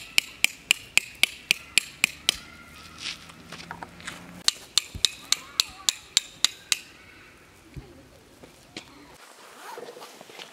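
Metal tent pegs being hammered into hard ground: quick, even strikes, about four a second, in two runs, one stopping a little over two seconds in and another of about nine strikes from about four and a half to nearly seven seconds in.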